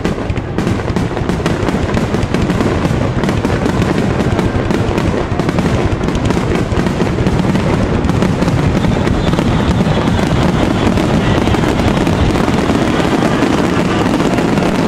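Fireworks finale barrage: aerial shells bursting one after another with crackling, a loud, unbroken run of bangs many times a second.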